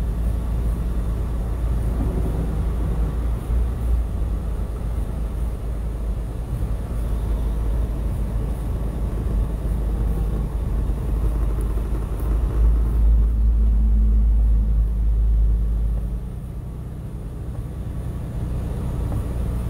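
Steady low rumble of a truck's engine and tyres heard from inside the cab while driving on a snow-covered highway. It grows louder about two-thirds of the way through, then eases off again.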